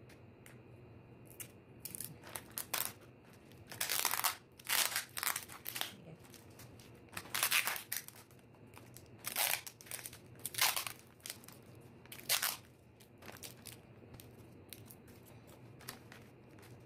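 Metallic foil wrapping paper crinkling and rustling in irregular bursts as it is handled and folded.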